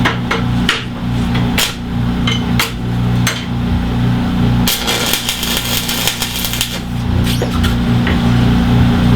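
Hammer taps and knocks on steel parts being set in position, a dozen or so spread out, over a steady low hum. About five seconds in, a roughly two-second burst of harsh noise.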